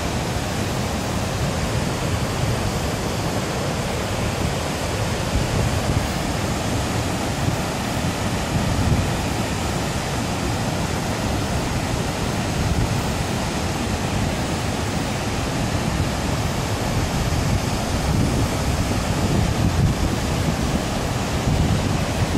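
Waterfall: a steady, loud rush of falling water, with an uneven low rumble underneath.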